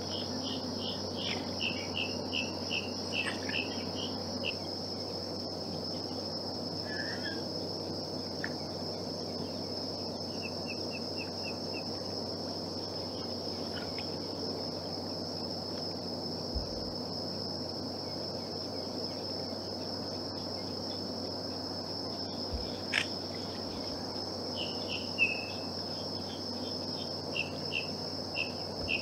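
Steady insect chorus, a continuous high drone, with short runs of a bird's quick repeated chirps near the start, once in the middle and again near the end.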